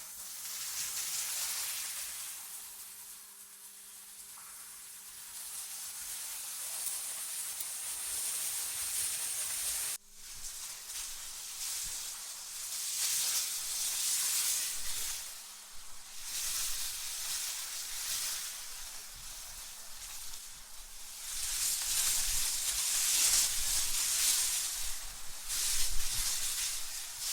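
AI-generated wind ambience: a high hiss of wind that swells and fades in slow gusts. It breaks off abruptly about ten seconds in and returns at once.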